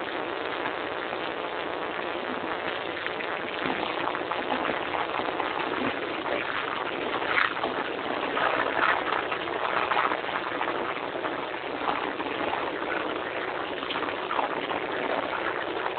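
Asphalt paver's machinery running: a steady, thin mechanical noise with little bass, growing rougher and more uneven from about four seconds in.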